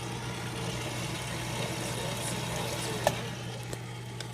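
Nostalgia Electrics popcorn machine running with kernels in the hot oil of its heated kettle: a steady hum with faint sizzling, before any kernels pop. A single sharp click about three seconds in.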